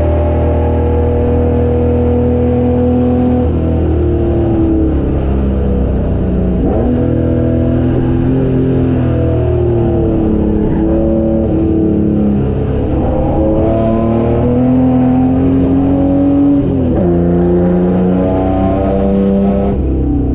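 HQ Holden race car's engine heard from onboard, running hard under racing load, its note climbing and dropping through gear changes, with a sharp drop in pitch near the end as it shifts up.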